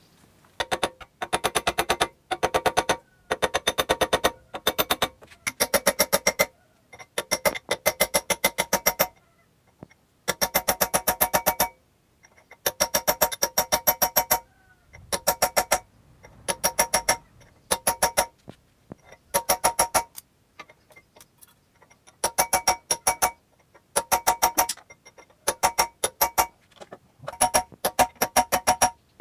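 A hammer striking a steel drift held against a screw-type splitting cone, driving the cone onto an electric motor's shaft. Quick metallic blows come in runs of one to two seconds with short pauses between them, each blow ringing at the same pitch.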